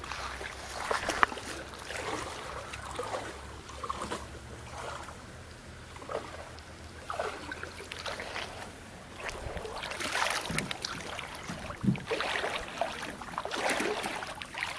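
Creek water splashing and sloshing at close range, mixed with scattered knocks and rustles of handling.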